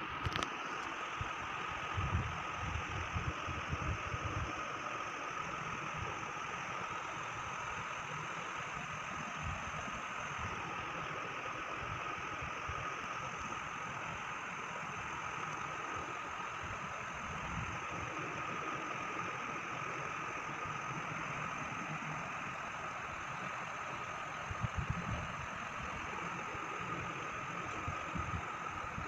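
Steady machine hum with a thin high whine, and low rumbles that swell now and then, most around two to four seconds in and again near the end.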